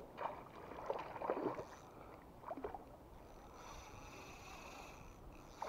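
Faint water splashing and sloshing at the side of an inflatable canoe: a few short splashes in the first three seconds, then only a steady faint hiss.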